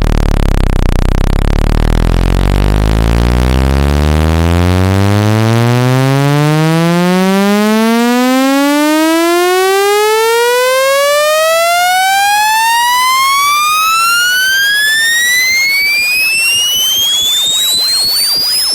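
Electronic speaker-cleaning tone sweep: a loud, buzzy tone with many overtones that glides steadily upward from a deep hum to a high, thin whistle near the end. This is the kind of sweep played to shake water and dust out of a phone speaker.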